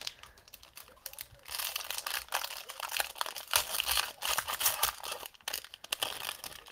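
Plastic wrappers of football trading-card packs crinkling and tearing as the packs are opened and handled, an irregular run of crackles and small clicks.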